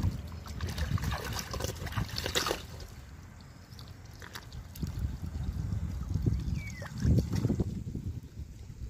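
Shallow seawater trickling and lapping, with scattered sharp knocks and scrapes as a large knife cuts into a sailfish on a wooden board. Uneven low rumbles later on, like wind buffeting the microphone.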